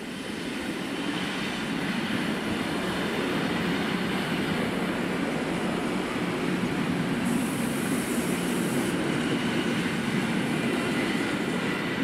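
ED72A electric multiple unit passing close by at speed: a steady rumble of wheels on the rails, building up in the first second. A brief high hiss comes in for about a second and a half, about seven seconds in.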